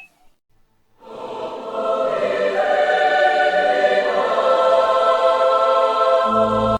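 A choir singing a long held chord, coming in about a second in, swelling and holding steady. It stops abruptly near the end, with a low thud just before the cut.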